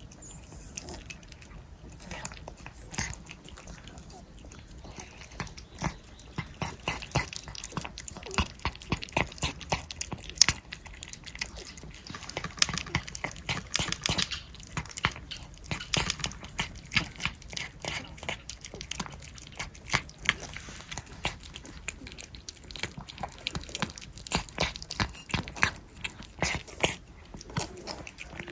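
Several cats licking and eating churu lickable paste treats close to the microphone: a dense, irregular run of wet smacking and licking clicks.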